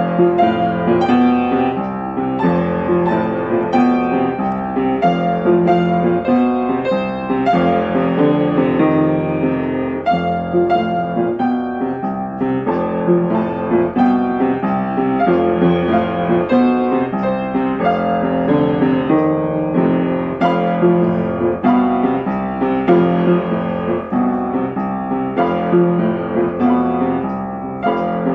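Solo piano playing a piece, with note after note and no pause.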